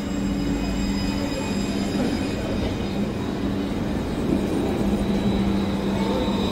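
Alstom Citadis low-floor tram moving slowly past the platform: a steady electric traction hum in two low tones over wheel-on-rail rumble, with a faint thin high squeal from the wheels.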